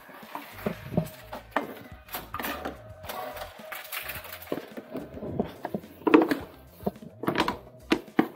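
Plastic deposit bottles being handled and fed into a supermarket reverse vending machine: crinkling plastic and a run of knocks and clicks, over the machine's steady hum as it takes in the bottles.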